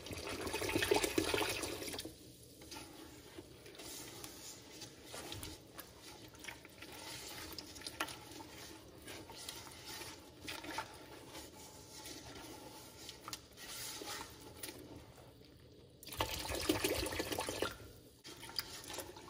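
Apple juice poured from a plastic jug into an enamelware pot of dry sugar and cornstarch for about two seconds. After that, quieter scraping and clicking of a spatula stirring the mixture against the enamel pot, with another louder stretch of noise about three seconds from the end.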